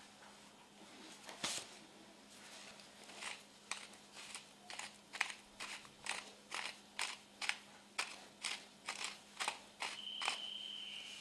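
Pepper mill grinding black peppercorns: a regular run of short crisp crunching clicks, about three a second, starting about three seconds in. A brief high squeak-like tone comes near the end.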